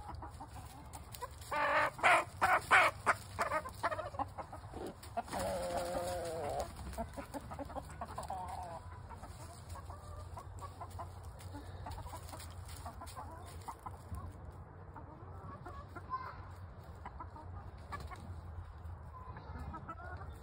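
Backyard chickens during a rooster mounting a hen: a loud flurry of squawks about two seconds in, then a longer drawn-out call, then soft scattered clucking.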